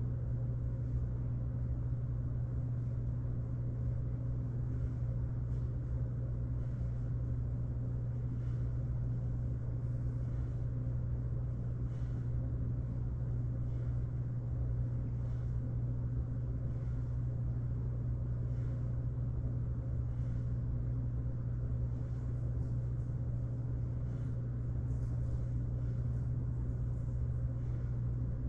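A steady low mechanical hum, unchanging throughout, with faint scattered ticks over it.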